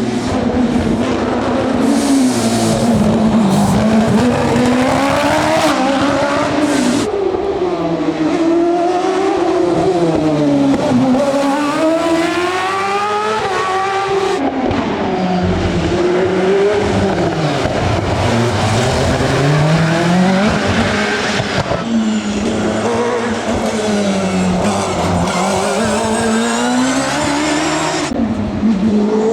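Hillclimb competition car engines at full effort, pitch climbing and dropping repeatedly through gear changes and corners. The sound changes abruptly several times as one car's run gives way to another's.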